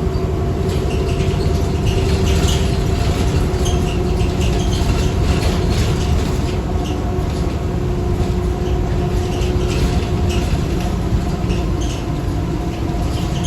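Inside a moving New Flyer D40LF diesel city bus: engine and drivetrain running under a deep rumble with a steady whine, and interior panels rattling. This bus's transmission is one the rider calls bad.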